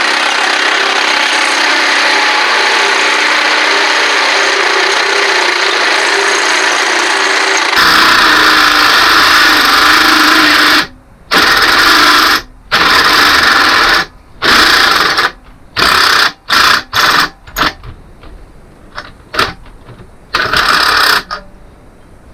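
Electric drill with a step drill bit opening out a hole in metal. It runs steadily for about eight seconds, the sound changes as the bit bites further in, and it ends in a string of short trigger bursts.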